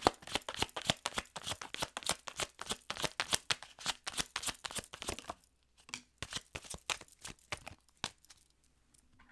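Tarot cards being shuffled by hand overhand-style, a fast run of crisp riffling clicks and rustles, about five or six a second. It slows to scattered clicks after about five seconds and stops near the end.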